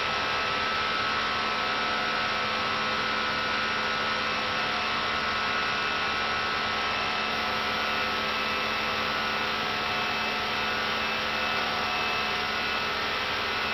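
Steady flight-deck noise of an Airbus A319 in the climb: an even noise with a steady low hum and several faint steady tones, unchanging throughout.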